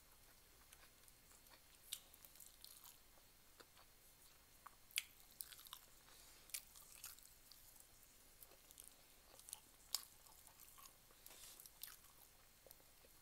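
Close-up chewing and mouth sounds of a person eating by hand: faint wet smacks and clicks at an irregular pace, with a couple of sharper ones about five and ten seconds in.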